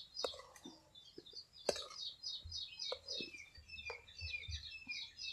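Small birds chirping in quick repeated high notes, about four a second, with a second, lower-pitched series of chirps joining about three seconds in. A few sharp clicks sound over it.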